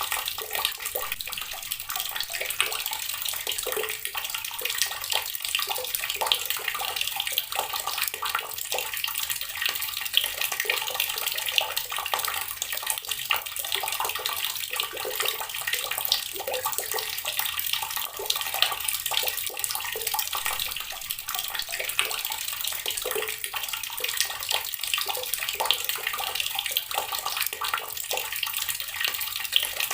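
Water running steadily from a tap and splashing into water below, an even splashing with many small irregular spatters.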